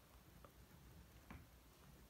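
Near silence with the faint sound of a ballpoint pen writing on grid paper: two soft ticks, about half a second and a little over a second in.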